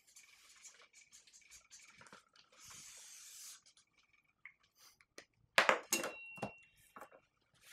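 Felt-tip marker writing on paper, a soft scratching hiss that is densest for about a second, then a few sharp knocks on the tabletop, one with a brief high ring, as a ruler is picked up.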